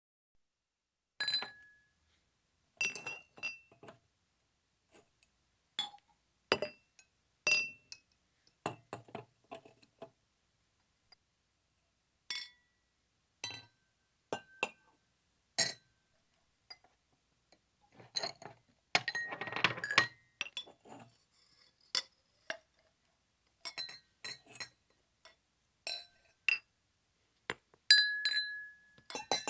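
Glass items clinking against each other in irregular single strikes, each with a brief ringing tone, with a busier stretch of rattling a little past the middle.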